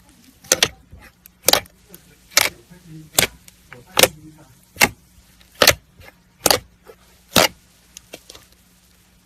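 Slime being squeezed and pressed, giving a run of sharp pops about once a second, nine in a row, then a few faint clicks near the end.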